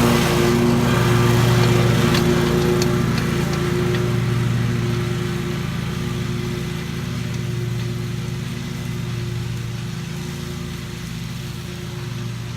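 Lawn mower engine running steadily at a constant speed, gradually getting quieter.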